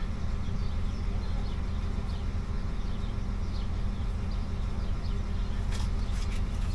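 Steady low hum and rumble of a regional train's machinery heard inside the driver's cab, with a couple of faint clicks near the end.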